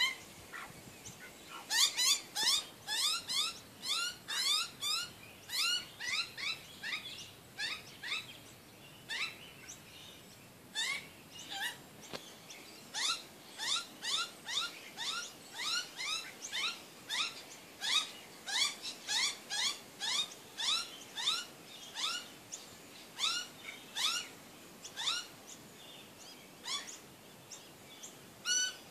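Australian magpies calling: a long run of short rising calls, about three a second, broken by a few brief pauses.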